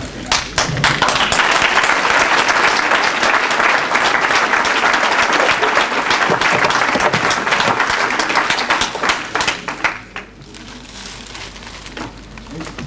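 Audience applauding: the clapping swells just after the start, stays dense and loud, then dies down about ten seconds in to scattered claps.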